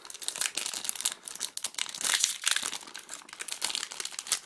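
Foil wrapper of a Yu-Gi-Oh! booster pack crinkling and tearing as it is opened by hand, in irregular bursts of crackling and rustling.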